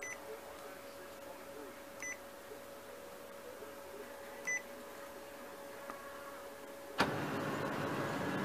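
Three short touchscreen key beeps from a Kyocera ECOSYS 3540 printer's control panel, then about 7 s in the printer's mechanism suddenly starts up with a loud, steady mechanical noise as it begins a status-page print, the first-start moment at which the owner reports an odd noise.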